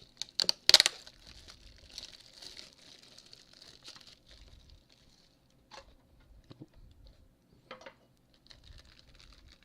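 Packaging of a boxed toy figure being opened by hand: a few sharp snaps in the first second, then crinkling and rustling with scattered clicks.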